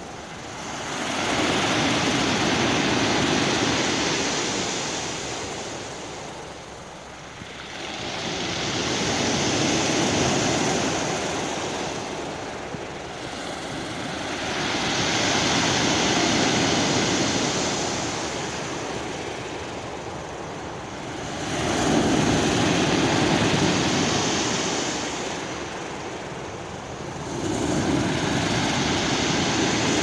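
Waves breaking and washing up over a beach of rounded pebbles, rising and falling in five swells about six seconds apart.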